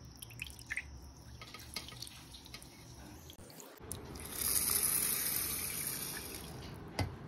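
Water splashing as rinse water is tipped off raw rice in a steel bowl, then fresh water poured from a jug onto the rice: a steady pouring splash that starts about four seconds in and slowly tails off. A single sharp tap comes near the end.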